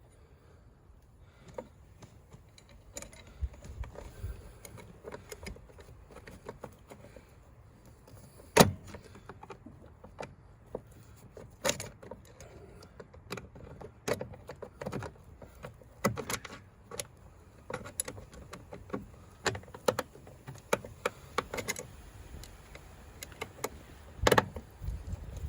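Irregular light clicks and knocks of a screw and screwdriver being handled and worked against the car's handbrake housing while a screw hole is sought, with one sharper knock about eight and a half seconds in.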